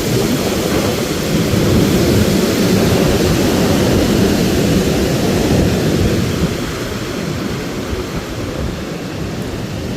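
Thunderstorm with strong wind: a loud, deep rumble that eases off somewhat about two-thirds of the way through.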